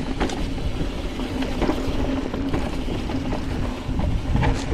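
Mountain bike riding fast down a rough dirt trail. Wind on the microphone and tyres on the ground make a constant low rumble with a steady hum underneath, and the bike rattles and knocks over bumps.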